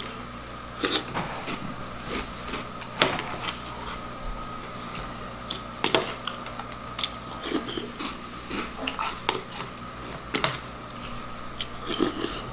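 A metal spoon clinking and scraping in a plastic cereal bowl, with crunchy chewing of Reese's Puffs between spoonfuls. The clicks come irregularly, a few sharp louder ones among softer scrapes.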